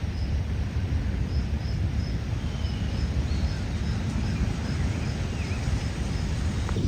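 Outdoor ambience: a low rumble of wind on the microphone under insects chirping in a high, repeating pulse, two or three a second, with a few faint bird calls.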